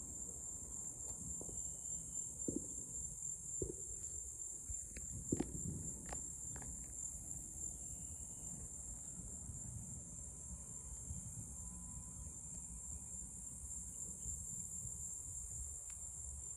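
Steady, high-pitched chorus of night insects such as crickets. A few soft knocks come about two to six seconds in.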